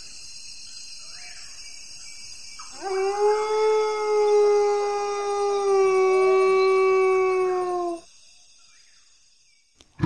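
A wolf howling: one long howl starting about three seconds in, gliding up briefly, then held for some five seconds and sinking slightly before it cuts off suddenly.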